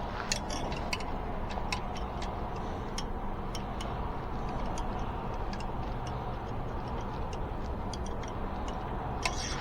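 Irregular light metallic clicks and ticks, about one or two a second, from hand tools working on an e-bike's brake and axle, over a steady low background noise.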